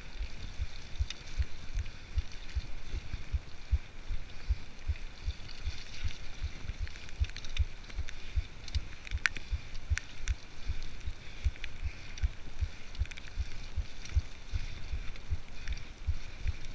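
Mountain bike ridden along a wet dirt trail: tyre and drivetrain noise with bike rattle, over an even run of low thumps about three a second, and a few sharp clicks around the middle.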